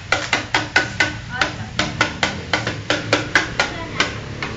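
Serving spoons clinking and scraping against metal food pots and plates in a rapid, irregular run of sharp clicks, several a second.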